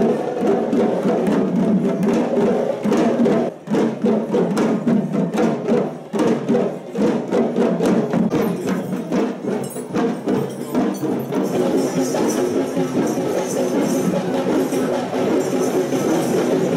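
Traditional Sri Lankan procession drumming: many double-headed hand drums struck in fast, dense strokes over steady pitched tones.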